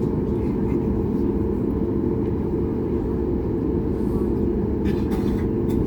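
Steady low rumble of a Boeing 737 MAX 8's CFM LEAP-1B engines and airflow heard inside the passenger cabin, with the engines at idle before the takeoff roll. A few faint short rustles come near the end.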